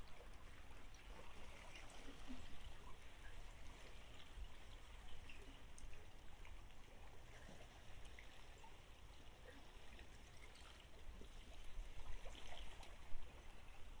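Faint, steady rain falling, with scattered drops ticking close by and a trickle of running water.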